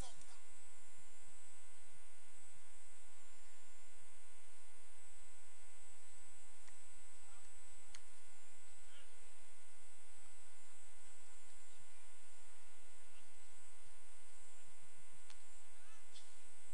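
Steady electrical hum with a buzz of many overtones, level throughout. Now and then there are faint distant voices and a few light clicks.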